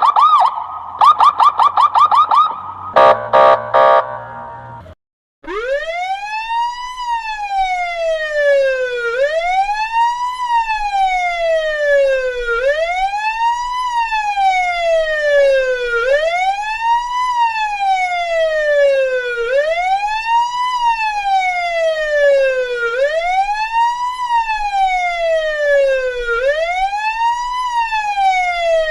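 Russian police car siren. It opens with a fast yelping warble in short bursts and a few short quacking horn blasts from the 'kryakalka' special signal. After a moment's silence about five seconds in, it changes to a slow wail that rises quickly and falls back more slowly, about every three and a half seconds.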